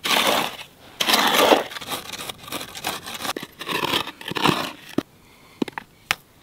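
Stones and gravel scraping and crunching in several bursts as rocks are shifted by hand on a stony shore, then a few sharp clicks of stone knocking on stone in the last second and a half.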